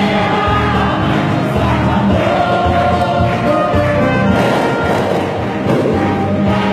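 Choir singing a hymn with electronic keyboard accompaniment.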